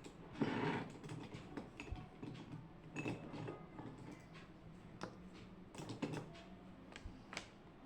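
Irregular small clicks and taps, with a short rustle about half a second in: the handling sounds of someone working at a desk.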